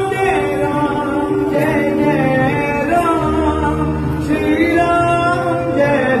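Male voices singing a Hindu devotional bhajan with held, gliding notes over a steady low musical backing.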